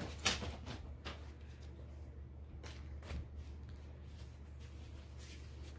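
Paper and cardstock rustling as valentine cards and school papers are handled, in a few short rustles with the strongest just after the start, over a low steady hum.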